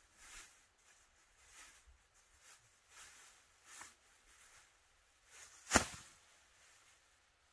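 Faint scuffs and rustles every second or so, with one sharp knock about six seconds in.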